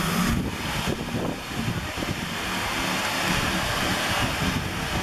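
Power drill running steadily, spinning a long shaft bit inside a hollowed pumpkin to scrape out the flesh.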